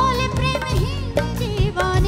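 A woman singing a Bengali modern song live into a microphone, with band accompaniment and a steady percussion beat.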